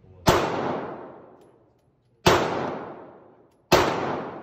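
Three pistol shots, the second about two seconds after the first and the third about a second and a half later. Each sharp crack is followed by a long reverberant tail from the enclosed range.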